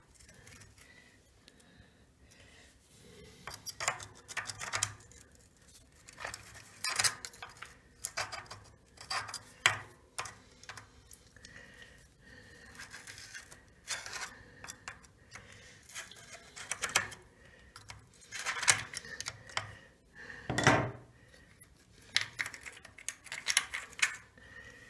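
Bicycle multi-speed freewheel turned by hand, its ratchet and steel sprockets giving irregular bursts of metallic clicking and clinking.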